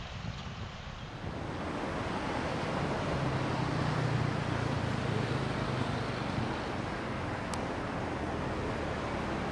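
Steady noise of road traffic with wind on the microphone, growing louder about a second in; a low engine hum swells through the middle.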